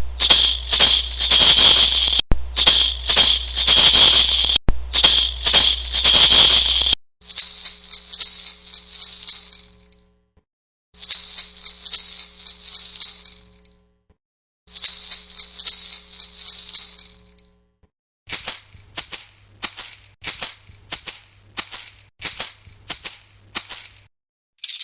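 Maracas shaking: three runs of rapid continuous shaking, then three shorter runs with short pauses between them, then about a dozen single sharp shakes in a steady rhythm near the end.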